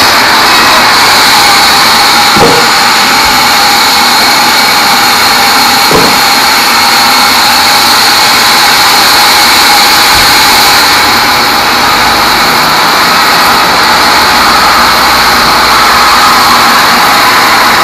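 Sawmill band saw running loud and steady, cutting a small teak log. Two sharp knocks come about two and a half and six seconds in.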